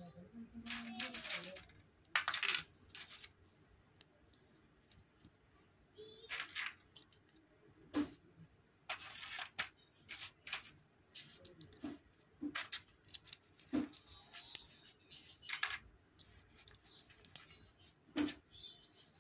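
Plastic Lego plates and bricks being handled and pressed together: scattered clicks and knocks, with a few short bursts of plastic clatter.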